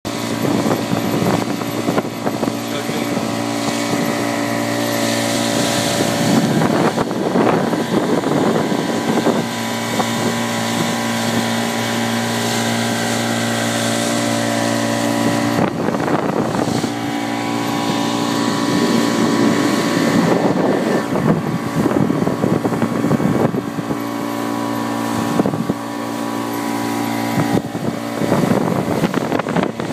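A 40 hp Yamaha outboard motor runs steadily at cruising speed, driving the boat. Wind and water rush past, swelling now and then.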